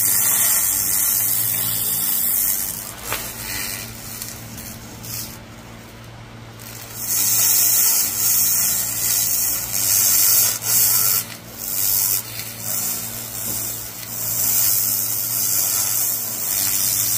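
Laser cleaner's beam ablating oil and grime off a steel Porsche connecting rod: a loud, hissing crackle, which means it is still burning off debris. It fades for a few seconds about three seconds in, then returns at full strength, with a steady low hum underneath.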